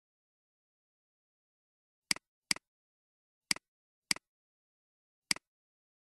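Five sharp computer mouse clicks, each a quick press-and-release double tick, over dead silence. Two come close together about two seconds in and three more are spread over the next three seconds.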